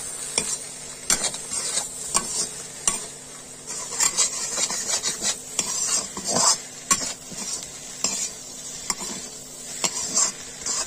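Slotted metal spatula scraping and knocking against a metal kadhai, stirring spices into vegetables frying in oil, with a sizzle underneath.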